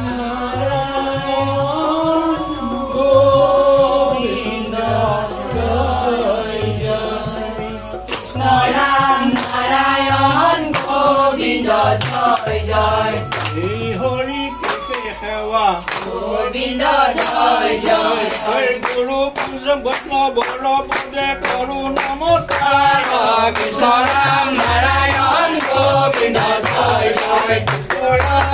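A group of voices singing a Hindu devotional song together, with rhythmic hand-clapping joining in about eight seconds in and keeping time to the end.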